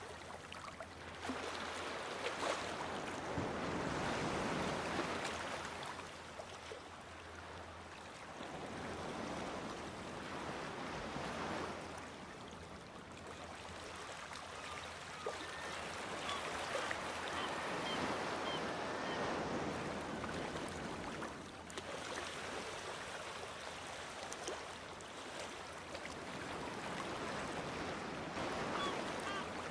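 Sea waves breaking against rocks: the wash of surf swells up and draws back every several seconds.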